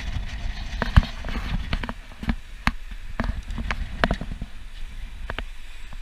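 Lagoon 400 sailing catamaran under way at sea: a low rumble of wind on the microphone with irregular sharp knocks and creaks from the boat, the loudest about a second in.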